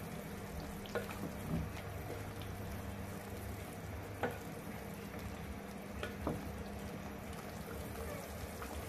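Pot of beef simmering in water with a steady bubbling, stirred with a wooden spatula that knocks against the pot about five times. A steady low hum runs underneath.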